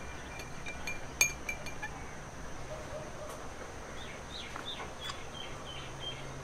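A metal spoon stirring chai in a ceramic cup, clinking against the rim in a series of light ringing taps through the first couple of seconds, the loudest about a second in.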